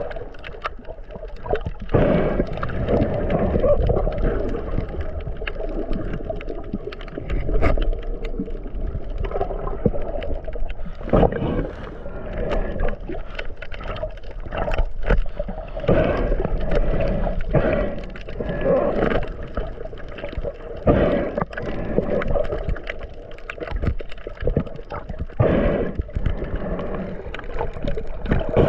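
Muffled water gurgling and sloshing, broken by irregular splashes and knocks throughout, with little high-pitched sound.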